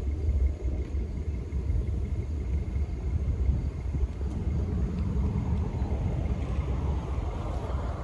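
Low, unsteady rumble of wind buffeting the microphone, with the tyre and road noise of an approaching car growing over the last couple of seconds.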